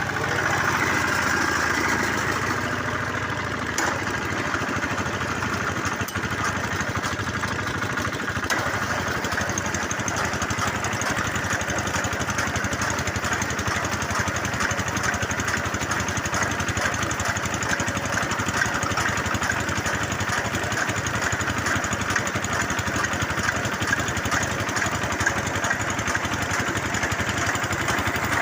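Small engine of a bore well drilling machine running steadily.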